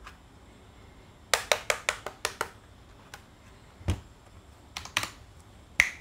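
Keycool KC84 mechanical keyboard with Huano red switches and PBT keycaps: a quick run of about seven key clacks, a low thump about four seconds in as the board is set down on the desk, then a few more sharp clicks near the end.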